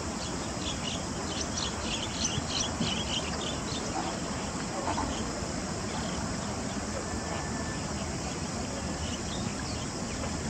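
Steady outdoor background hiss by the river, with a quick run of faint, high, short chirps in the first three seconds or so and a few scattered ones later.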